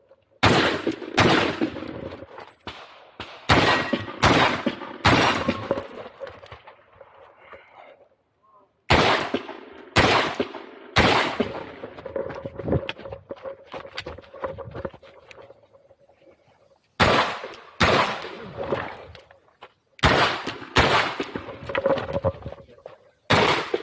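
Glock pistol firing a string of rapid shots, each with a ringing echo. Groups of shots come with pauses of a few seconds between them.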